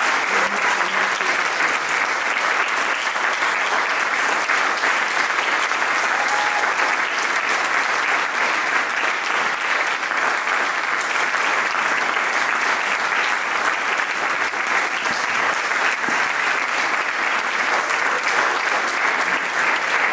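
Audience applauding, a steady, unbroken clapping throughout.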